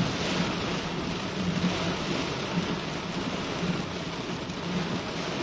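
Heavy rain pouring down steadily, with a low vehicle hum underneath.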